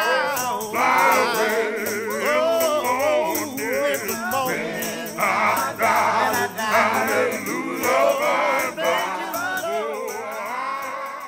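Music with a singing voice over a rattling percussion beat.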